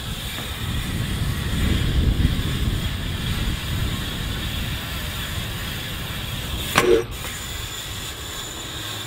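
BMX tyres rolling over smooth concrete: a steady low rumble that swells about two seconds in, with a brief sharper sound just before seven seconds.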